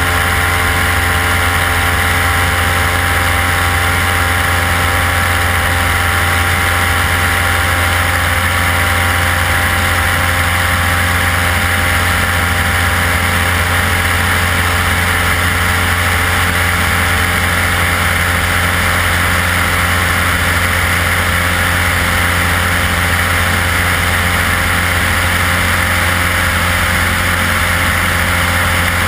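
Single-engine light aircraft's piston engine and propeller running at steady power in flight, a constant drone with a steady rush of air over the outside-mounted camera.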